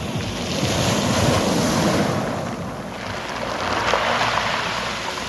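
Sea waves washing ashore, rising in two swells, one peaking a little over a second in and another about four seconds in.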